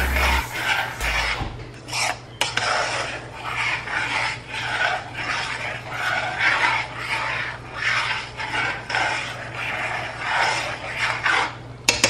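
Repeated rasping, scraping strokes, about two a second.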